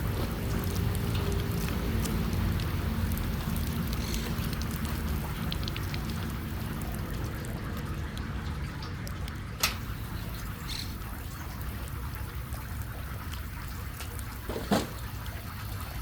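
Sea water splashing and trickling over a steady low rumble, with two sharp clicks about ten and fifteen seconds in.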